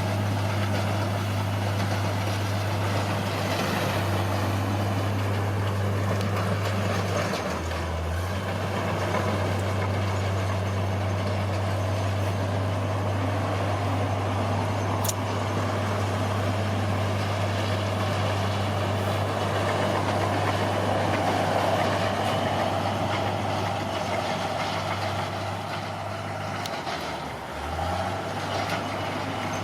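Heavy earthmoving machine's diesel engine running steadily under work, with a deep steady drone and a rough mechanical noise above it; the drone dips briefly twice, at about 7 seconds and again near the end.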